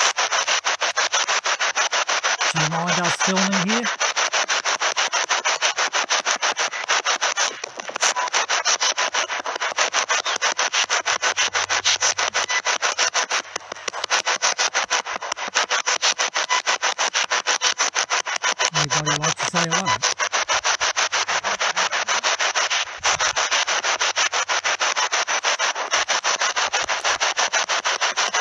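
Spirit box sweeping through radio stations: a steady run of rapid, evenly chopped static bursts, with brief voice-like fragments about three seconds in and again near nineteen seconds.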